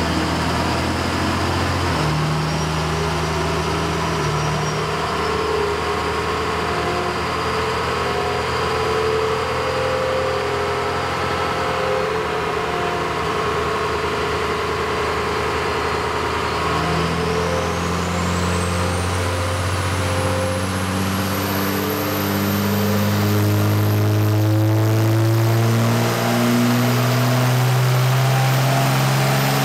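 2004.5 Dodge Ram 2500's 5.9-litre Cummins inline-six turbodiesel running on a chassis dyno. It drones steadily at first, then goes into a full-throttle pull: a high whistle rises steeply in pitch as the engine note climbs and gets louder. It holds at the top, with one brief dip a few seconds before the end.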